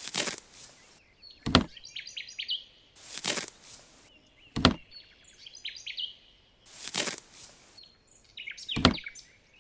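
Miniature cauliflowers being harvested by hand from a sandy soil bed: a gritty scrape of sand about a second long as each one is pulled, then a sharp knock as it drops into a plastic crate, repeating about every three seconds. Short high chirps come in around the knocks.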